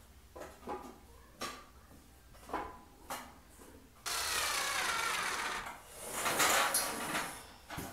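Light clicks and knocks of a white metal shelf-unit frame being fitted together by hand. About four seconds in, a louder rubbing and scraping starts as the frame is shifted and tipped upright on a rug.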